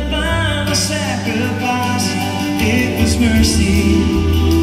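Live gospel song played on two acoustic guitars with sung vocals held on long notes, over a steady low bass.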